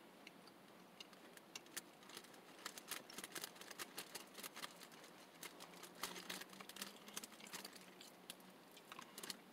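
Faint, irregular mouth clicks and smacks of a person chewing a frosted toaster pastry with the mouth close to the microphone, coming more often after about two seconds.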